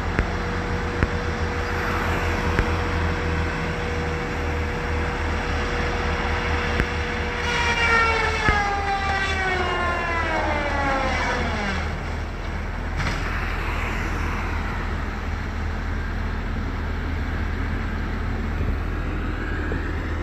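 Mini excavator's diesel engine running steadily with a low rumble. From about a third of the way in, a whine slides down in pitch for a few seconds.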